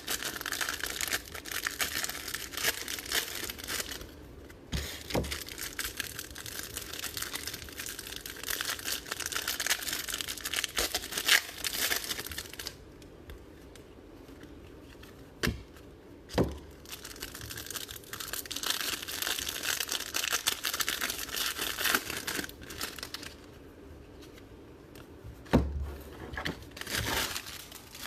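Plastic wrapping on a trading-card box and its packs being torn open and crinkled by hand, in long stretches with short pauses and a few light knocks.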